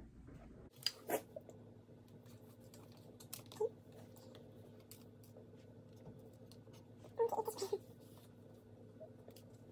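Soft scattered taps and clicks of cookie dough pieces being set down on a metal baking sheet, over a faint steady hum. A brief murmur of a voice comes about seven seconds in.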